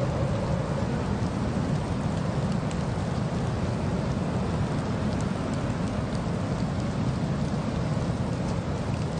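Steady low rushing and rumbling noise of a car driving through a snowstorm: wind and road noise, with a few faint ticks.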